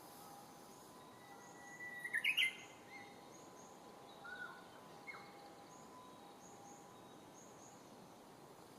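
Japanese bush warbler (uguisu) singing its song: a long held whistle running into a quick, loud flourish of notes about two seconds in, followed by a couple of softer single notes. Faint, high, repeated chirps sound throughout.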